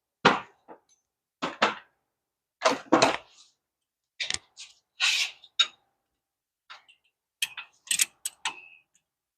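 Irregular series of sharp metallic clanks and clicks as a ratchet and socket are handled against the front hub bolts, about a dozen separate knocks.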